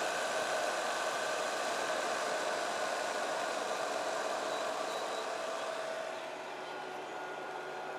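Zero Breeze Mark 2 portable air conditioner running in boost mode: a steady rush of fan air with a steady mechanical hum and whine from the compressor, easing slightly about six seconds in.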